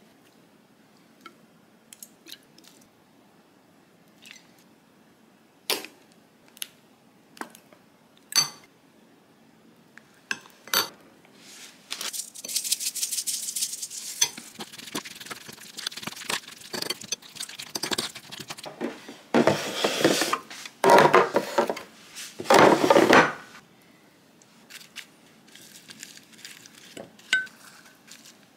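Metal spoon clinking against a ceramic bowl in scattered taps. After that comes a long stretch of stirring and scraping through a wet chili-flake and soy-sauce seasoning, loudest in a few bursts of mixing past the middle.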